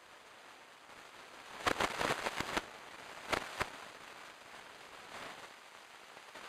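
A young red deer stag stepping in dry leaf litter and twigs: a short burst of crackling snaps, then two single sharper clicks a moment later, over a steady faint hiss.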